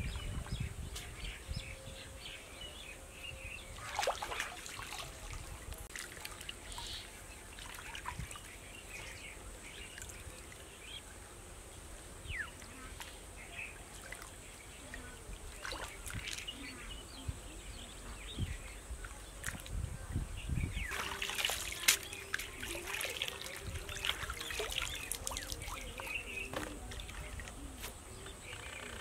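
Shallow stream water splashing and trickling as leafy greens are rinsed in a bamboo basket dipped in the water, with louder splashes about four seconds in and again around twenty-one to twenty-three seconds in.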